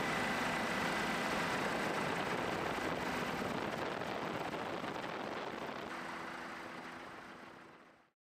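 Steady helicopter noise heard from aboard the aircraft: an even rush with a faint steady high whine and low hum, fading out near the end.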